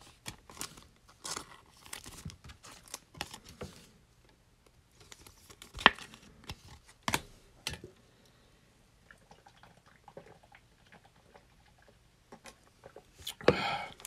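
Donruss Optic basketball cards being shuffled and handled: quick soft clicks and rustles of card sliding over card, with a couple of sharper snaps midway. Near the end, a short loud crinkle of a foil card-pack wrapper.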